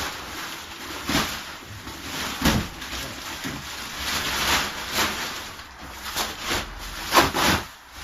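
Plastic packaging and wrapping being handled, pulled and torn off a new kayak's parts, crinkling and rustling in irregular bursts with a few sharper rips.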